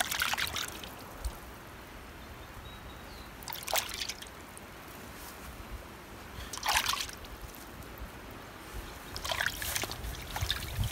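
Brine splashing and dripping in a metal pot as wet pieces of marinated beaver tail are lifted out one at a time and laid on a wire grill rack: four short wet splashes about three seconds apart, over a faint steady background.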